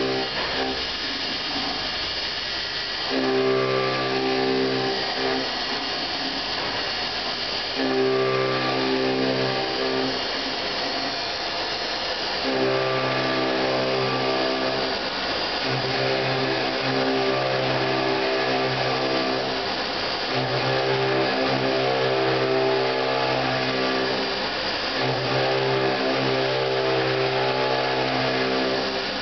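CNC vertical machining centre milling an aluminium part with an end mill. A steady, fixed-pitch cutting tone with overtones comes and goes in stretches of a few seconds as the cutter moves into and out of the cut. Under it runs a constant hiss from the running spindle.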